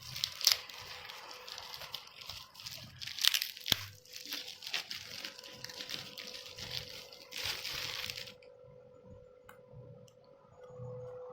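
Packaging being crinkled and torn open by hand, in a run of rustles and sharp crackles that dies down about eight seconds in.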